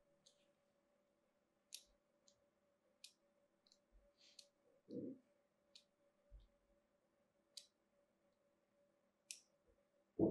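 A thin blade scoring lines into a bar of soap: short crisp ticks, roughly one a second. A soft low bump comes about halfway, and a louder one right at the end.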